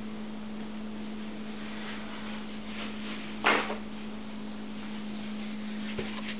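A single sharp knock off-camera about halfway through, like a door or cupboard being shut, over a steady low electrical hum; a faint click near the end.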